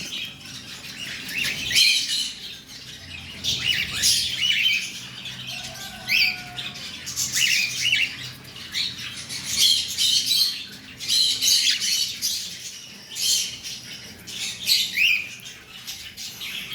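Cockatiel giving repeated harsh squawks and short chirping calls, in bursts about a second apart.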